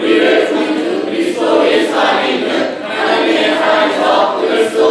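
Many young male and female voices in unison, a loud choral chant of a memorised Bible passage, with held notes and short breaks about every half second.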